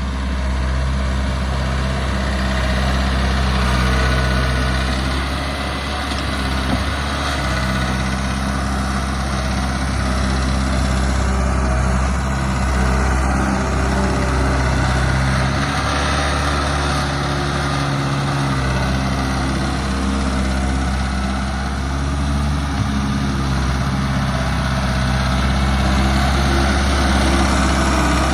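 Case 1845C skid steer's four-cylinder 4BT Cummins diesel running steadily, with mild swells in level.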